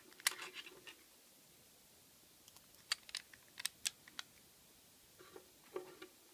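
Scattered light metal clicks and taps of lock-picking tools and a brass-and-steel padlock being handled: a few in the first second, a quick run of about half a dozen sharp clicks around the middle, and a few softer ones near the end.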